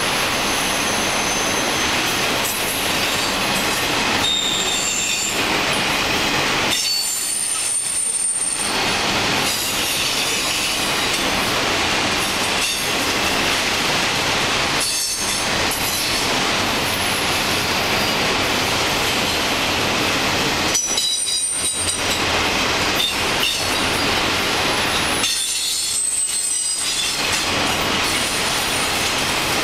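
Freight train of autorack cars rolling past, a steady loud noise of wheels on rail, with high-pitched wheel squeal coming and going several times.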